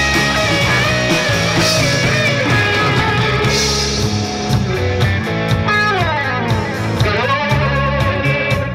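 Live rock band playing an instrumental passage: guitars over a drum kit. A lead line slides down in pitch about six seconds in.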